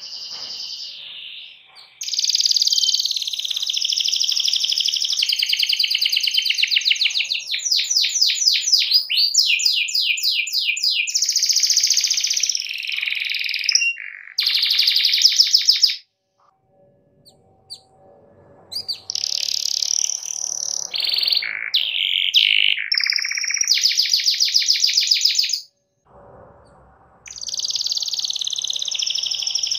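Yellow domestic canary singing in full song: long phrases of very fast trills and gliding rolls, broken by short pauses around the middle and again near the end.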